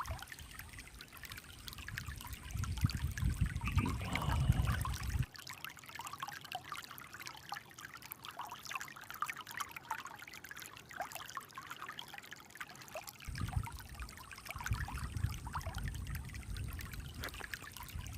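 Shallow mountain stream trickling and babbling over stones. A low rumble comes in about two seconds in, cuts off abruptly about five seconds in, and returns near the end.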